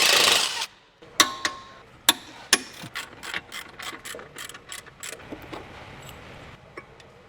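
Hand tools working on a car's front brake and hub: a short loud burst of noise at the start, then metal clinks and a run of quick, even ratchet-wrench clicks as bolts are worked.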